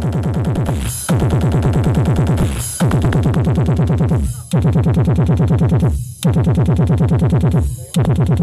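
Loud electronic bass music blasting from a mobile sound system. It comes in repeating phrases, each opening with a falling sweep and then fast, deep bass pulses, broken by short gaps every second and a half or two.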